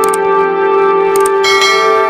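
Sustained background music with a subscribe-button sound effect laid over it: quick clicks at the start and again just past a second in, then a bright bell ding about one and a half seconds in.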